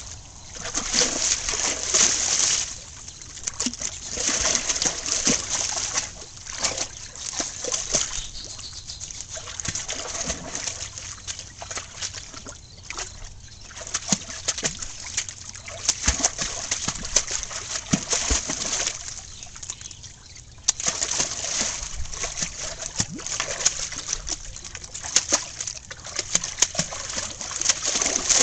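A dog splashing and sloshing about in a garden pond, water splattering in irregular bursts with short lulls between them.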